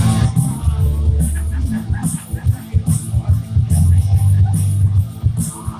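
Loud rock music with electric guitar, bass and drums, playing as a wrestler's entrance theme.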